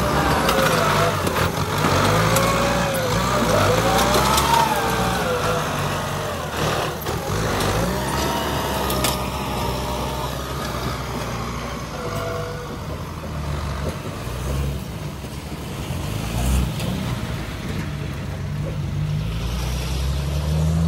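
Heavy diesel engines of a dump truck and a tractor running, with a whine that rises and falls in pitch over the first few seconds, then a steady low engine rumble.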